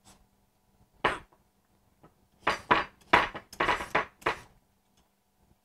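A blade scraping the skin off an unripe green papaya in short peeling strokes: one stroke about a second in, then a quick run of seven or eight.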